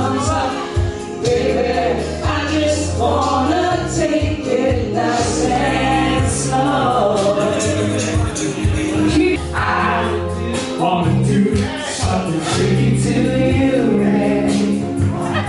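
Karaoke singing in a bar: singers performing into microphones over a backing track, played through the room's speakers.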